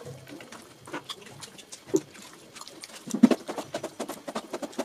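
Wet squishing and clicking of a bare hand mashing and mixing rice with fish gravy on a banana leaf. It comes as an irregular run of short sticky smacks that grows thicker and louder a little past three seconds in.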